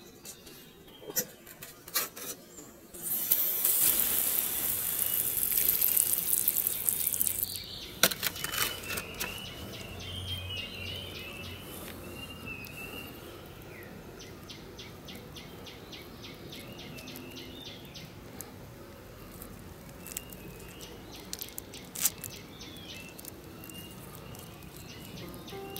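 Water from a hose spray nozzle hissing onto potting soil for about four seconds, with a few knocks from handling the pot. After that, birds chirp and there are runs of rapid, even ticking calls.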